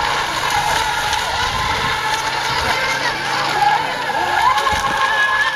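Several electric RC racing boats running flat out, their motors making high whining tones that rise and dip as the boats turn around the buoys.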